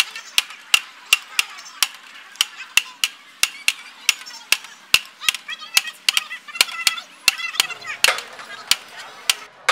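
Metal serving spoon striking a large steel biryani pot in a steady rhythm, about three sharp ringing clacks a second, as biryani is scooped out onto plates. Crowd chatter underneath.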